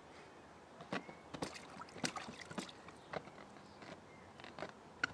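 Small, irregular splashes and sloshing of water in a small inflatable paddling pool as a baby moves and pats the surface with her hands, busiest in the first half and again near the end.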